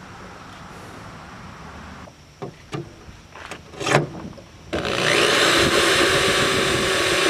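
A few light knocks, then about five seconds in a power drill starts and runs steadily, its bit cutting into the sheet-metal hood of a 2003 Honda Accord to make holes for hood pins.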